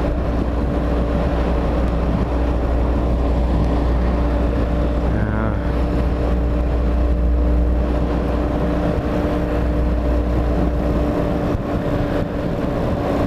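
Hawk 250 motorcycle engine running at a steady cruise, with heavy wind rumble on the microphone; the wind rumble eases about eleven seconds in.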